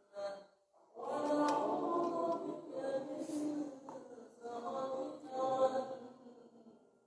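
A mosque congregation chanting together in unison in phrases with short pauses, a recitation between tarawih prayer rounds.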